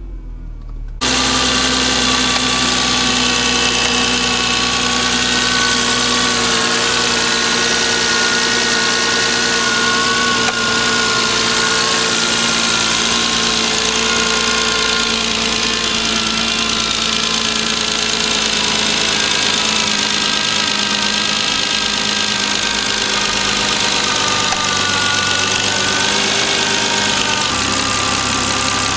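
Volvo XC90 running stationary with a steady whine made of several held tones over the engine, which gets suddenly louder about a second in. The owner finds the whine loudest from the nearside rear, over the gearbox area.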